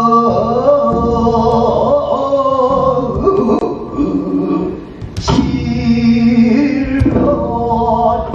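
Music with long, wavering pansori-style sung notes over a backing, broken by heavy daebuk drum strikes about five and seven seconds in.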